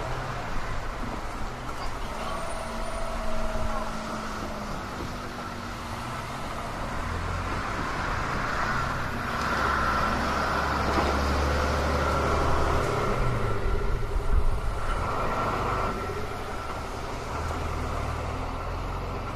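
A vehicle passing a railway level crossing: a low engine sound swells through the middle and fades near the end, over a steady noise of traffic.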